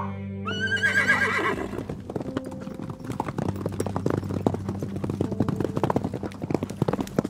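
A horse whinnies once about half a second in, a call that rises and then wavers. Then comes the hoofbeats of a herd of horses galloping on a dirt track, a dense, fast clatter of many hooves.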